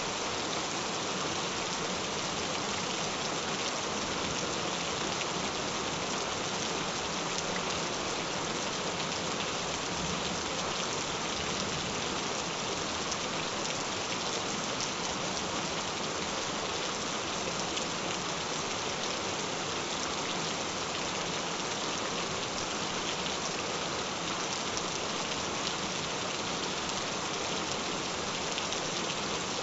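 Gentle rain falling steadily, an even, unbroken hiss of many drops with no change in strength.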